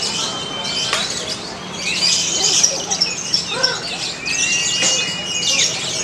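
Caged lovebirds chattering and chirping in a dense, continuous high-pitched stream. Two long, level whistled notes stand out, one at the start and another about four seconds in.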